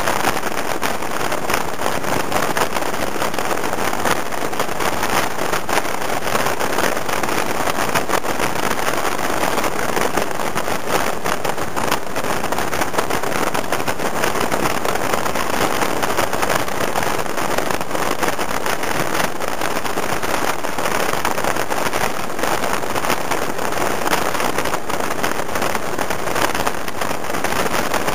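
Steady rush of wind and motor noise from a scooter cruising at highway speed, the wind buffeting the microphone evenly and without a break.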